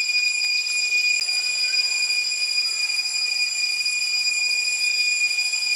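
Cicadas droning in the trees: a steady, high-pitched whine that holds one pitch without a break.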